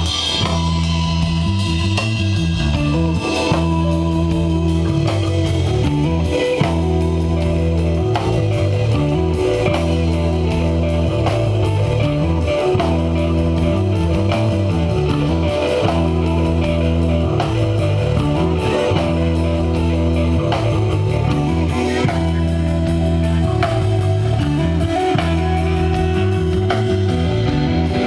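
Live desert rock jam with no vocals. Electric guitar plays over a bass line that repeats about every two seconds and a steady drum kit.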